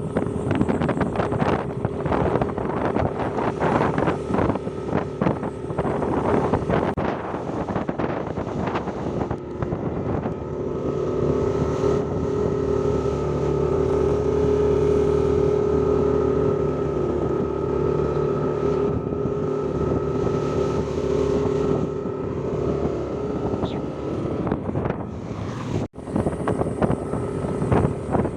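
A motor vehicle's engine running steadily with wind buffeting the microphone. The first part is mostly gusty wind noise; from about a third of the way in, the engine's steady hum is stronger.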